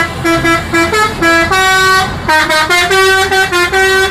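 A tour bus's multi-tone musical 'telolet' horn playing a quick tune, its loud notes stepping up and down a few times a second with short breaks between them.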